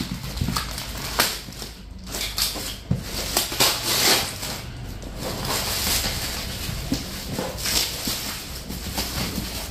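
Plastic packaging wrap being torn open and crumpled by hand: irregular crinkling and rustling.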